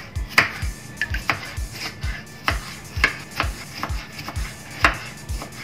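Background music with a steady beat of kick-drum thuds, about two to three a second.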